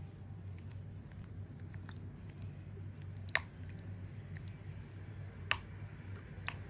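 Light scattered clicks and taps as a soft brush scrubs a tortoise's shell in a shallow basin of water, two of them sharper about three and a half and five and a half seconds in, over a steady low hum.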